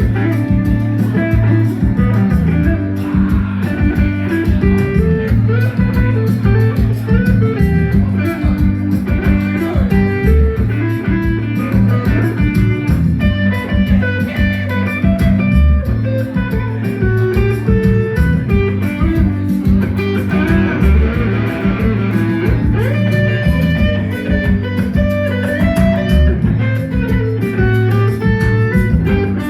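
A band playing blues-style music, with electric guitar over a bass guitar line.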